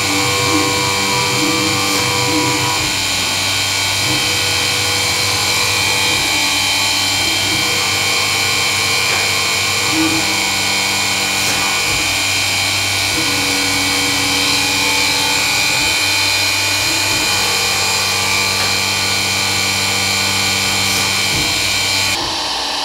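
Benchtop milling machine cutting aluminium with a small end mill, its spindle driven by a three-phase motor through a toothed belt: a steady whine made of several held tones over cutting noise. The sound changes abruptly shortly before the end.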